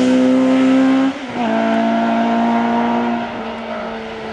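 Hill-climb racing car's engine pulling hard at high revs. About a second in it cuts out briefly for an upshift and comes back at a lower pitch, then slowly fades as the car draws away up the hill.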